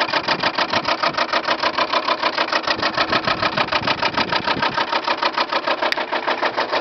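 Lennox heat pump outdoor unit's fan running with a loud, fast, even clatter, about six or seven strikes a second, heard from right over the top of the unit. The owners put the racket down to ice built up on the fan blades hitting the housing, with the unit's de-icer likely not working.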